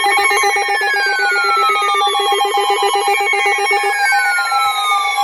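Several emergency alert receivers sounding their alarm tones together just before a weather warning: a fast electronic warble that stops about four seconds in, layered with steady beeping tones and slow, falling siren-like sweeps.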